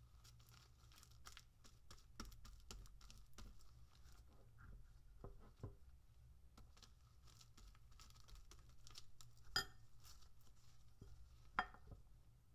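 Quiet handling of cooked rice: a plastic rice paddle scooping sticky rice from a bowl and pressing it onto a nori sheet on a bamboo mat, giving soft scrapes and light taps, with two sharper clicks about two seconds apart near the end. A faint low hum lies underneath.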